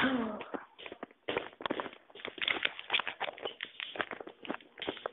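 Foil snack bag being handled and crinkled close to the microphone: a rapid, irregular crackle, after a short loud sound at the very start.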